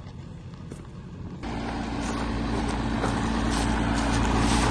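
Vehicle engine running close by. It comes in suddenly about a second and a half in, with a steady low hum in it, and grows gradually louder.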